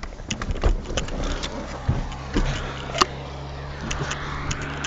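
Car engine idling steadily, with scattered knocks and rustles from the handheld camera being moved. There is a sharp click about three seconds in.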